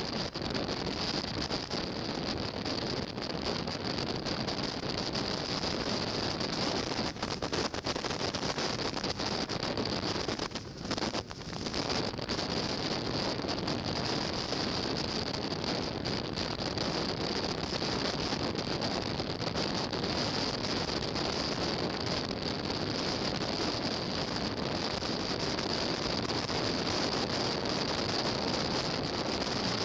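Wind rushing over a motorcycle-mounted camera's microphone at road speed, mixed with the motorcycle's road noise. It is a steady rush with a high hiss over it, dropping briefly about a third of the way through.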